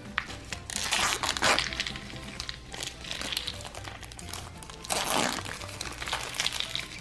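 Clear plastic packaging wrap crinkling as it is pulled off a tray of candy soda cans, in loud bursts about a second in and again about five seconds in, over background music.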